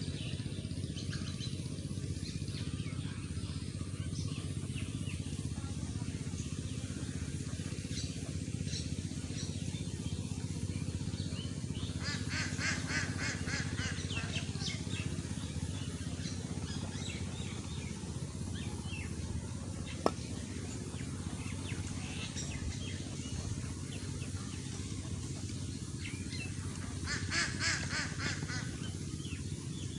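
Birds calling over a steady low background noise, with two bursts of rapid repeated calls, about twelve seconds in and near the end, and scattered short chirps. A single sharp click about twenty seconds in.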